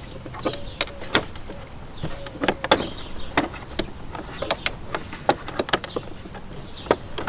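Hard plastic side panel of a Suzuki DL650 V-Strom clicking and knocking against the bodywork in irregular sharp taps as its hooks are worked into their slots.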